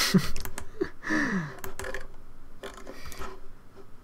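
A man's short wordless groans falling in pitch, one at the start and a longer one about a second in, over scattered computer keyboard and mouse clicks.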